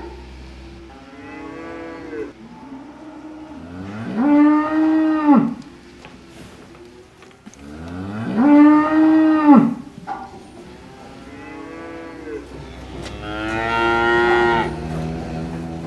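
Holstein Friesian dairy cows mooing back and forth: four long moos, a quieter one first, then two loud ones that each rise in pitch at the start and drop away at the end, and a last long one running on at the close.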